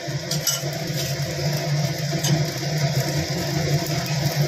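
Oil sizzling in the pan around a frying rava dosa, over a steady low hum, with a few light clicks near the start and about two seconds in.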